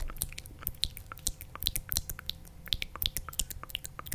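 Close-miked ASMR clicks: many small, crisp, irregular clicks, several a second.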